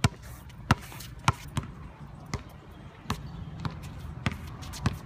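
Basketball dribbled on a hard outdoor court: about eight sharp bounces at an uneven pace, roughly one every half second with a longer gap in the middle.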